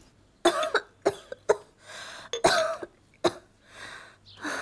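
A person coughing repeatedly: about six short coughs in the first three and a half seconds, with breathing between them.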